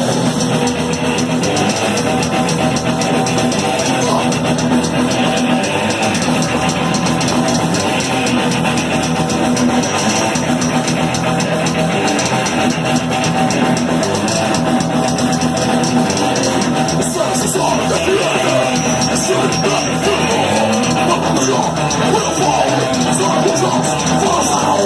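A live speed/thrash metal band playing at full volume: distorted electric guitars over fast, driving drums, with no vocals coming through clearly.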